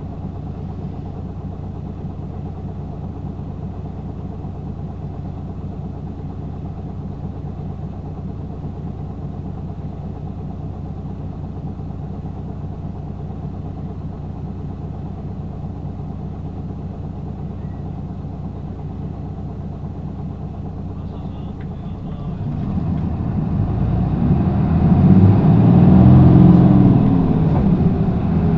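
Hino Blue Ribbon II city bus's diesel engine idling steadily, then revving up as the bus pulls away about 22 seconds in. The engine note rises, drops briefly for a manual gear change near the end, and climbs again.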